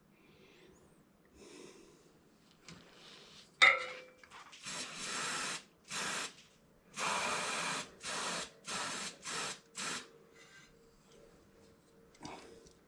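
A sharp knock with a brief ring a little under four seconds in, then a run of about seven short hissing bursts from an aerosol spray can, each under a second long.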